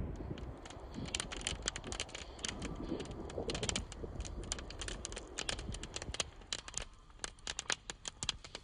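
Campfire crackling: a dense run of irregular sharp pops and snaps that thins out in the second half, over a low rumble.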